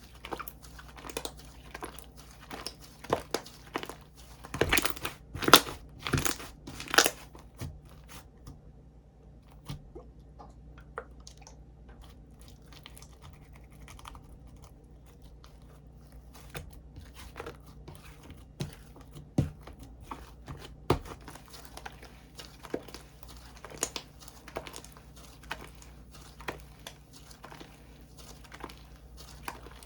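Slime being worked by hand, squished and stretched, giving crackling, popping clicks that come thickest and loudest about five to seven seconds in, then thin out into scattered pops.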